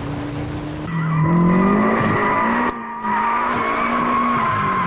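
Tyres squealing as the Nissan FJ20 turbo-powered Holden TE Gemini slides through a corner, with the engine running underneath. The squeal starts about a second in, breaks off briefly near the middle, then holds on.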